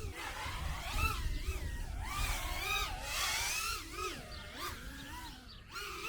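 Micro FPV racer's small electric motors whining, the pitch rising and falling quickly and unevenly as the throttle changes.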